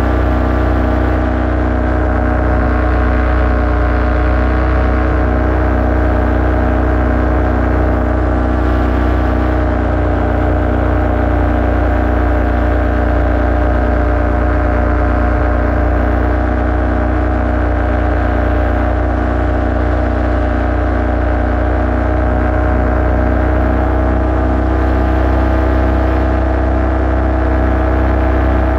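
Paramotor engine and propeller running steadily in flight, an even drone that holds the same pitch and level throughout.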